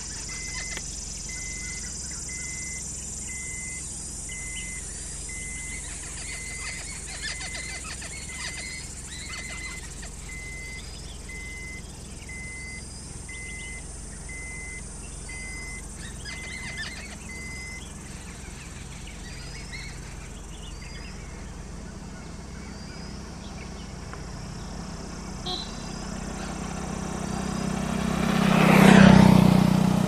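Birds calling in the background: one short note repeated evenly about one and a half times a second, which stops about two-thirds of the way through, and small rising chirps every second or two. Near the end a loud noise swells up and falls away again.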